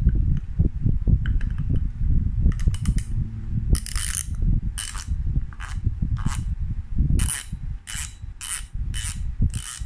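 Daiwa Saltiga Z6500H Dogfight spinning reel being cranked by hand, its gears turning with a steady low whir. From a few seconds in, short sharp high-pitched rasps come about every half second.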